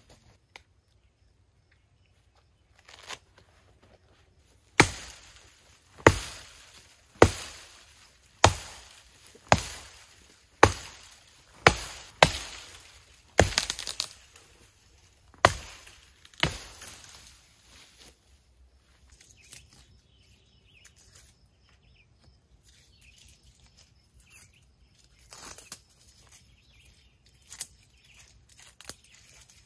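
Axe chopping into the trunk of a young green tree, about a dozen sharp strikes a little over a second apart. After that only faint scattered rustling and a few light snaps.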